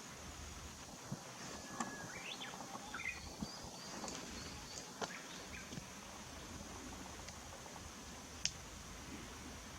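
Faint chirps of small songbirds over a steady outdoor hiss, the calls clustered in the first half, with a few sharp ticks.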